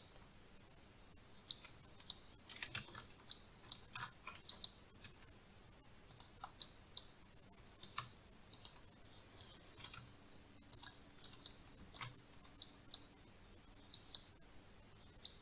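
Faint, irregular clicks of a computer mouse and keyboard, coming a few at a time.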